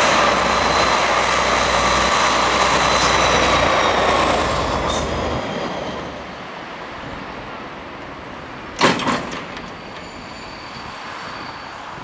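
Diesel locomotive hauling a passenger train passes close by, its engine loud at first and fading away over the first six seconds, then the coaches roll past more quietly. A sharp metallic clank cuts in about nine seconds in, the loudest moment, with a faint wheel squeal.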